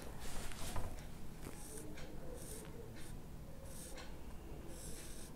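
Marker pen drawing lines on a whiteboard: five or six short strokes of the felt tip rubbing across the board, with brief pauses between them.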